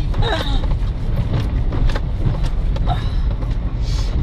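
Vehicle driving over a rough, rutted dirt track: a steady low rumble with frequent short knocks and rattles as it bumps along.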